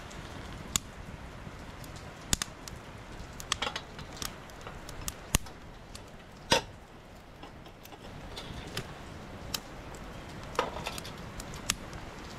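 Wood fire crackling, with scattered sharp pops at irregular intervals over a steady low hiss.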